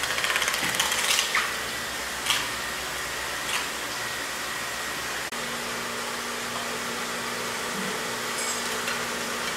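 A steady hiss of background noise, with several short scraping strokes in the first four seconds. A low steady hum comes in about halfway.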